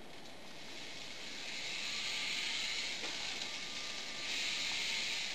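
Small electric gear motors of a K'nex robot arm running, a hissing whir that builds over the first two seconds as the gripper jaws close.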